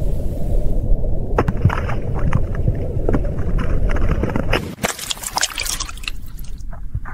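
A tomato landing on asphalt with a few light taps, then bursting about five seconds in with a wet splatter of juice and pulp, over a steady low rumble.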